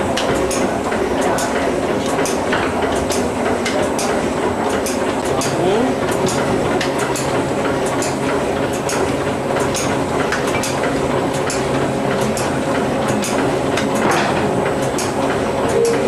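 Automatic packaging machine running: a steady mechanical hum with a quick, regular clicking from its moving parts.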